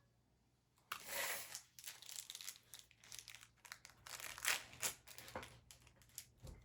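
Plastic wrapping of small L.O.L. Surprise toy packets crinkling and tearing as they are unwrapped by hand, in irregular rustles and crackles starting about a second in.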